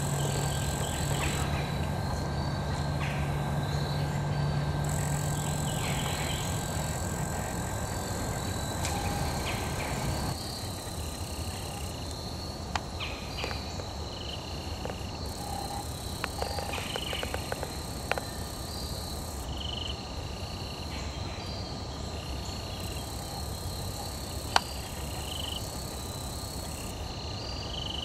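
A steady, high-pitched insect chorus. A low steady hum runs under it for the first ten seconds or so and stops abruptly. After that, short high chirps repeat every second or two, with a few faint clicks.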